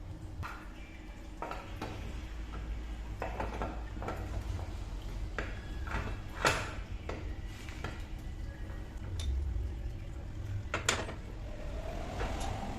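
Metal tools and parts clinking and knocking against one another in irregular single strikes, a few ringing briefly. The sharpest strikes come about halfway through and again near the end.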